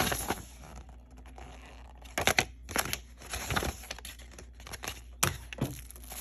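Plastic packaging crinkling and rustling in irregular handfuls while a product box is unpacked, with a few sharper crackles and clicks.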